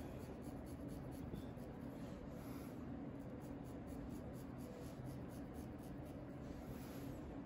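Straight razor scraping stubble off the jaw and neck in quick, short strokes: a dry, raspy jori-jori sound. A steady low hum runs underneath.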